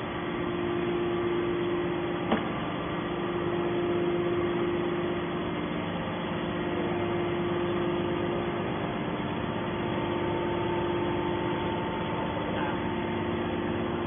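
Steady electric-hydraulic hum of a hydraulic scrap metal baler's pump unit running, with a single sharp click about two seconds in.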